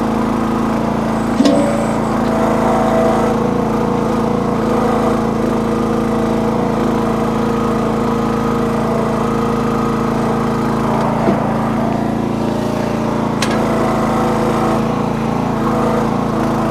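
Small engine of a towable backhoe running steadily at working speed while the machine digs. A couple of short sharp clicks or knocks come through, one about a second and a half in and another near the end.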